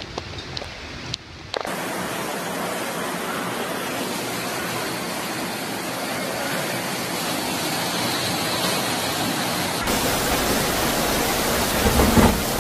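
Steady rushing of floodwater. It starts abruptly about a second and a half in, after a quieter start with a few clicks, and changes abruptly near ten seconds in to a fuller, deeper rush.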